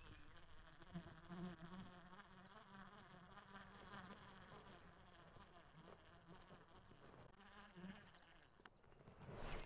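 A flying insect buzzing, a low wavering hum that comes and goes, with faint chirping behind it. A short rushing whoosh comes near the end.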